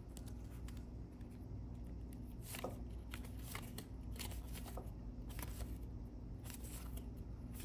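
2023-24 Panini NBA Hoops trading cards being flicked one at a time through a stack held in the hand: a light, irregular series of card-stock slides and snaps, over a faint steady low hum.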